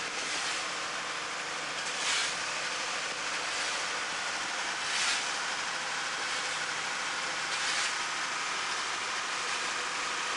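Steady hiss with a faint hum of running machinery, with a short louder hiss about every three seconds.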